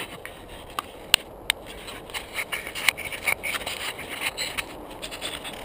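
Handling noise right at the GoPro: a scattered run of sharp clicks and scrapes as a hand touches and repositions the camera.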